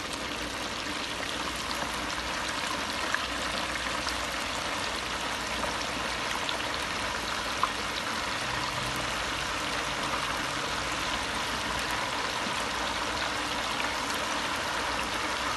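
Small fish deep-frying in hot oil in an electric deep fryer: a steady, even sizzle of bubbling oil, with a couple of sharp pops.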